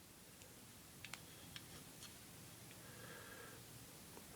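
Near silence, with a few faint light clicks from pistol magazines being handled.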